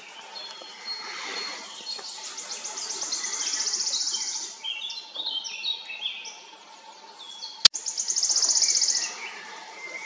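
Woodland songbirds singing: a high, rapid trill twice, with assorted short chirps in between. A single sharp click sounds shortly before the second trill.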